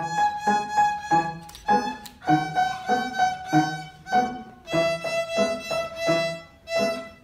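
Beginner-level violin playing a simple melody with piano accompaniment beneath, the piano striking short, evenly spaced chords. The violin's tune steps lower twice, and the music stops just before the end.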